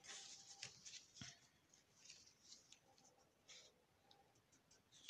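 Faint rustling and light ticks of kraft cardstock being handled and folded by hand as a paper box is pressed closed.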